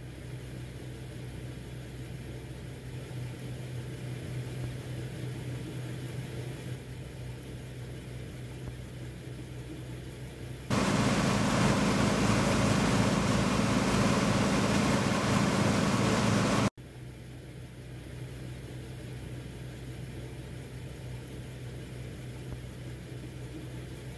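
New Holland TX-series combine harvester running with a steady engine hum. About ten seconds in, a loud rushing noise sets in as barley grain pours from the unloading auger into a trailer. It cuts off suddenly some six seconds later, and the steady machine hum returns.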